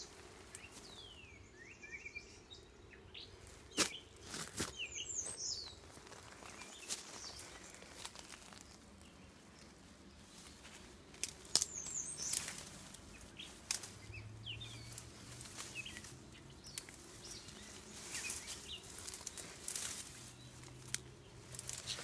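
Leaves and stems rustling and brushing, with scattered knocks and clicks, as someone pushes up through dense woodland undergrowth. Small birds chirp briefly now and then, mostly in the first few seconds and again about halfway through.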